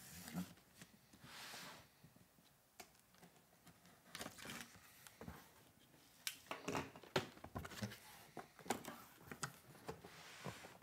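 Faint handling of a cardboard shipping box on a wooden tabletop: scattered light taps, scrapes and rustles of cardboard, with a brief sliding hiss about a second in.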